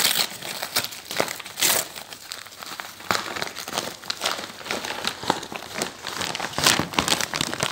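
Packaging crinkling and rustling in irregular bursts as it is unwrapped by hand.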